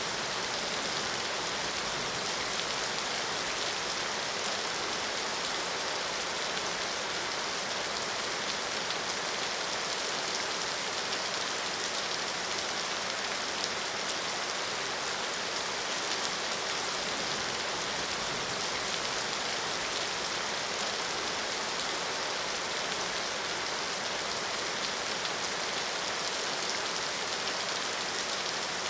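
Steady rain falling, an even hiss with a dense patter of drops on a surface, without let-up.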